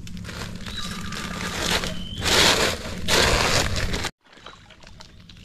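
Fish being put into a sack: rustling and sloshing, with two loud noisy bursts about two and three seconds in. The sound cuts off suddenly about four seconds in.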